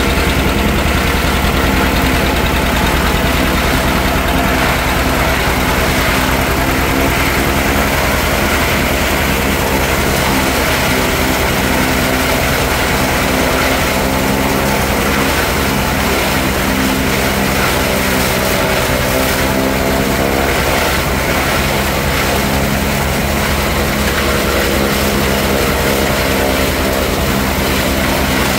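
John Deere two-cylinder tractor engine running steadily under load as it drives a one-row Fox forage chopper cutting standing corn, the chopper running along with the engine.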